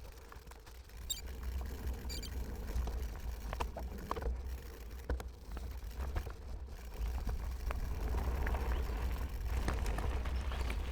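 Bicycle being ridden along a trail: a steady low rumble, most likely wind on the microphone and tyre noise, with scattered sharp clicks and rattles from the bike. The rumble grows a little louder after about seven seconds.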